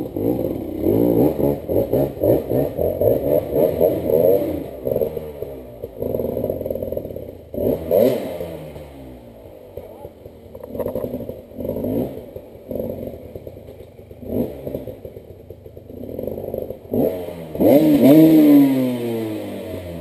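Dirt bike engine revving hard in repeated bursts, the pitch climbing and dropping as the rider fights up a steep, loose forest hillclimb. There is a long run of revs in the first few seconds, then shorter bursts with lulls between, and a loud rev near the end that falls away.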